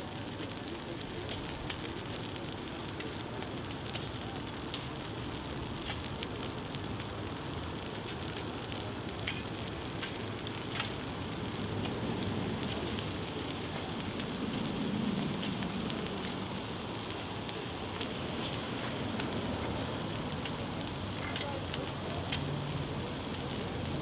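Brush and grass fire burning: a steady rushing hiss with scattered sharp crackles and pops from the burning vegetation.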